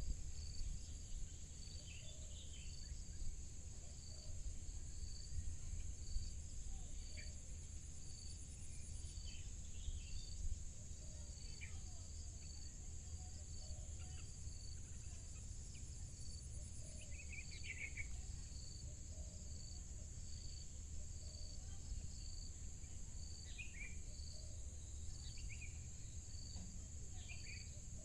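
Outdoor insect chorus: a steady shrill buzz with a regular pulsing call about once a second, while short bird chirps come and go over a low rumble of wind.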